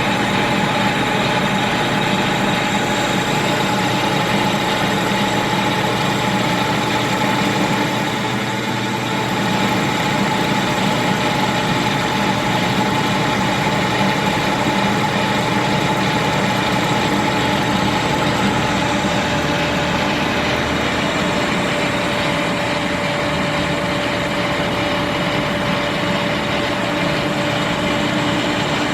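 Victor 1640 manual lathe running steadily while turning round steel stock, a constant mechanical hum with a steady whine; it dips briefly about eight seconds in.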